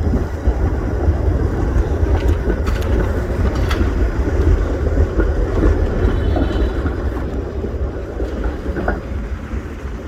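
Strong wind buffeting the microphone in a snowstorm: a loud, steady rumble, with faint street traffic behind it.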